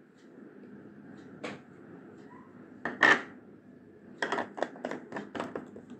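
White plastic cream jar and its lid being handled and opened: a light click, a louder knock about three seconds in, then a quick run of about six small clicks.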